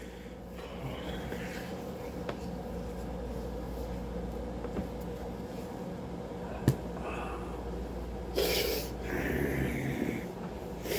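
Room tone of a small room: a steady low hum with faint rustles, one sharp click about two-thirds in, and a louder brief rushing sound near the end.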